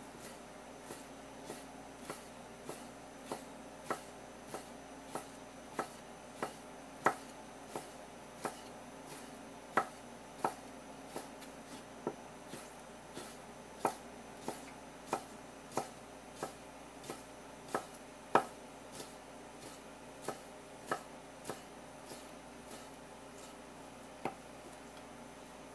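Kitchen knife slicing horse mackerel fillet into small pieces on a wooden cutting board: a steady rhythm of sharp knocks as the blade meets the board, about three every two seconds.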